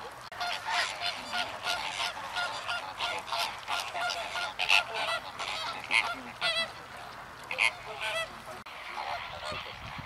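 A flock of greater flamingos calling: a dense chorus of short, goose-like honks and chatter that thins out near the end.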